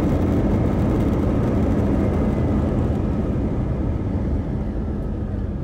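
Passenger plane rolling fast along the runway, heard from inside the cabin: a loud, dense rumble of engines and wheels with a faint high whine, slowly getting quieter.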